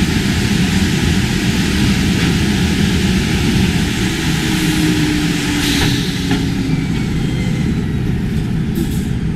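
Industrial laundry machinery running: a steady loud roar with a low hum, a brief hiss about six seconds in and a few faint clicks near the end.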